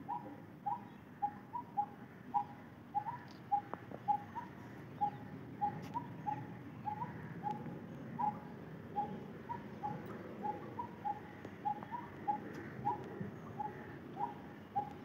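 A bird calling a long run of short, clear notes, about two a second, mostly on one pitch with now and then a slightly higher note.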